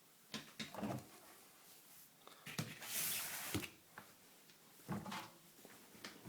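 Knocks and clicks of a Candy Grando front-loading washing machine being handled while it is set up for a wash, with a short sliding scrape about three seconds in.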